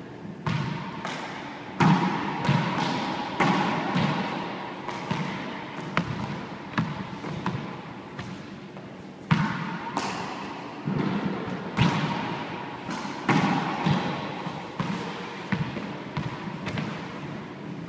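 Handball rally in an enclosed four-wall court: a rubber ball struck with gloved hands and hitting the walls and floor, a string of sharp, echoing smacks at irregular intervals.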